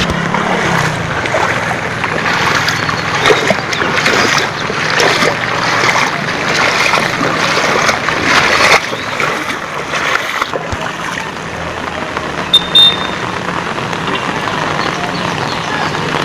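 Heavy monsoon rain and floodwater flowing over a flooded street: a steady hiss with splashing, and a low hum underneath. About twelve and a half seconds in come two brief sharp sounds.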